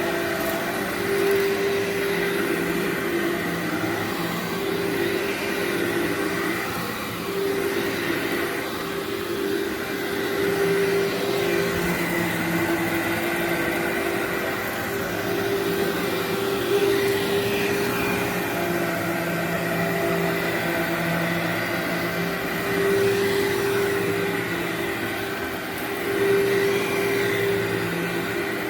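Workhorse vacuum cleaner running over berber carpet: a steady motor hum and whine whose loudness swells and dips every second or two as it works the carpet.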